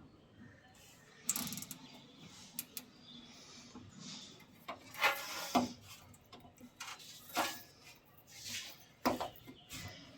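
Irregular clicks, knocks and scrapes of hard objects being handled, a few at a time, with the loudest cluster about halfway through.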